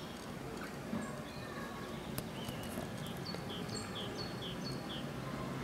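Low rumble and occasional knocks of a double-deck electric tram running slowly towards the listener on street track. About halfway through, a bird calls a quick run of five short chirps.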